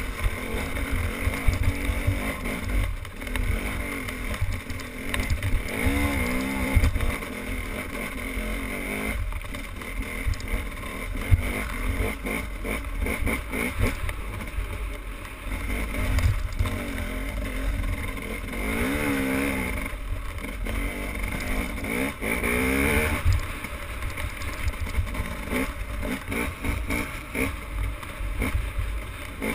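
A motorboat engine runs steadily while wind rumbles on the microphone. The engine's pitch wavers briefly a few times.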